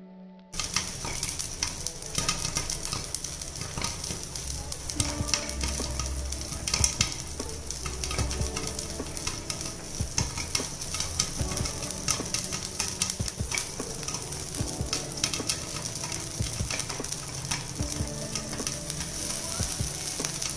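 Popcorn kernels popping inside a covered aluminium pressure cooker with its whistle and sealing ring taken out: many sharp, irregular pops over a steady sizzle of hot oil.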